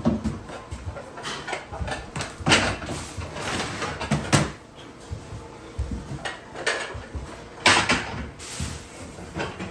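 Kitchen cabinet doors and dishes being handled: a run of irregular knocks and clatters, the loudest about two and a half, four and a half and seven and a half seconds in.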